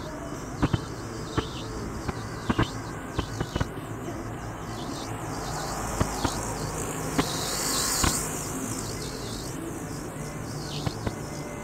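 Steady road and engine rumble inside a car cabin at highway speed, with scattered sharp clicks. About eight seconds in, a buzzing motorcycle passes close by in the next lane, and the noise swells.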